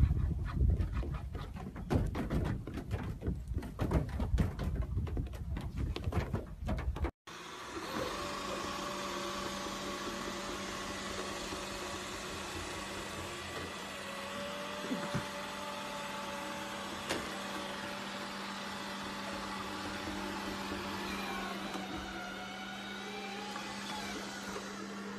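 Irregular knocks and scuffling noise for about seven seconds, then an abrupt change to a robot vacuum cleaner running: a steady motor hum with a low drone and a higher whine that wavers a little near the end.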